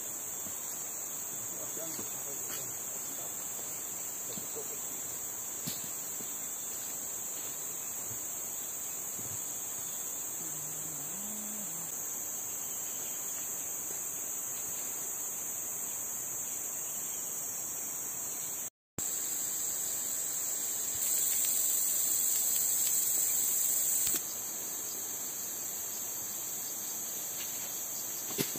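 Steady, high-pitched chorus of forest insects droning without a break. It cuts out for an instant about two-thirds of the way through, then swells louder for about three seconds before settling back.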